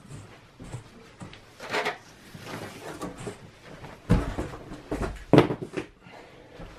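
Computer hardware handled off to the side: a scraping rattle about two seconds in, then a few clunks and knocks, the sharpest about five and a half seconds in.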